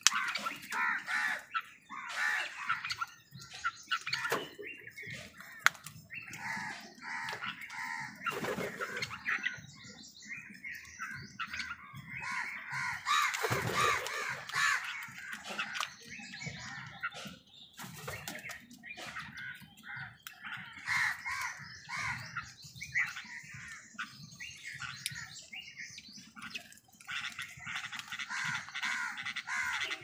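A flock of house crows cawing over and over, many calls overlapping, loudest about halfway through.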